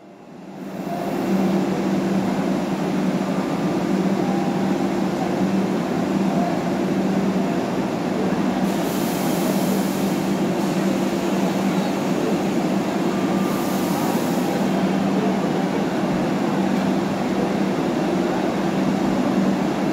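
Vande Bharat electric train set creeping forward at walking pace, its running equipment giving a steady low hum that builds up over the first second or so. Two short high hisses come near the middle.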